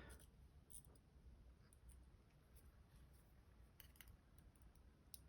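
Near silence, with a few faint, scattered small clicks: small metal lock parts and tools being handled while the pins are taken out of a disassembled padlock.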